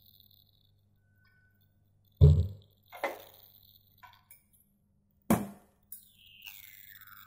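A frying pan and an oil bottle being handled on a glass induction hob: three knocks, the first the loudest and deepest, with a couple of small clicks between. A faint steady hum from the hob runs underneath, and near the end a falling whine.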